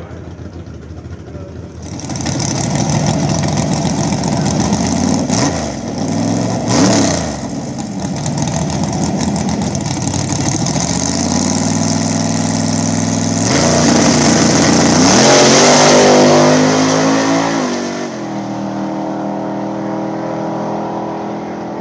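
Drag-racing pickup truck's engine revving at the starting line with a few quick blips, then launching at full throttle, its pitch climbing for several seconds as it accelerates down the strip before dropping off.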